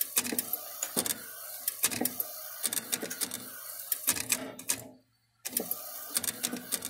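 Flatbed UV inkjet printer printing poker chips: the print-head carriage shuttles back and forth with a steady mechanical whir and a pair of sharp clicks about every second as it reverses at the end of each pass. The sound cuts out briefly about five seconds in, then the same rhythm resumes.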